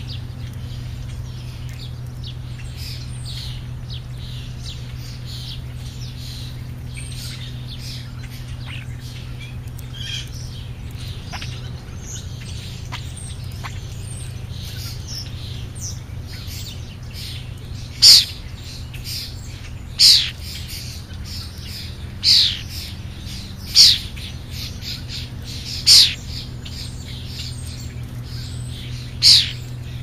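European starlings at a ground feeding spot, calling with many short high chirps. Six loud, harsh downward-sweeping calls come in the second half, about two seconds apart. A steady low hum runs underneath.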